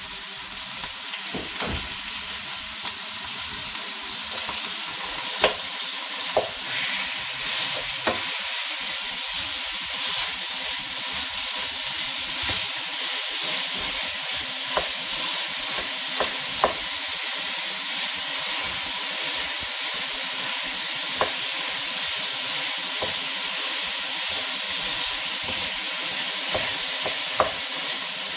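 Minced beef frying in oil in a hot pan, sizzling with a steady hiss. A few short sharp clicks from the pan being stirred are scattered through it.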